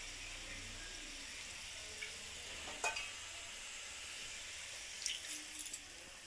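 A chilli-paneer sauce of tomato, soy and chilli sauces with water sizzling in a kadai, a steady hiss. A sharp knock comes about three seconds in, and a few quick clicks follow near the end.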